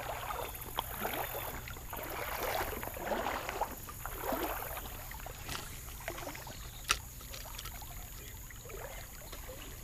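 Shallow creek water sloshing and swishing around the legs of someone wading, a soft surge roughly every second, with one sharp click about seven seconds in.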